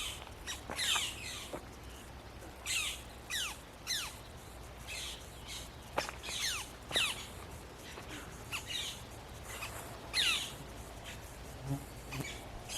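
Birds calling: short, harsh calls that slide steeply downward in pitch, irregularly spaced about once a second, some doubled or overlapping.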